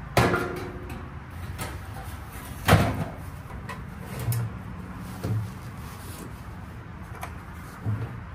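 Metal clanks and knocks from hardware being handled during a blower-motor swap: two loud ringing clanks, one just after the start and one near three seconds in, with lighter clicks and rattles in between.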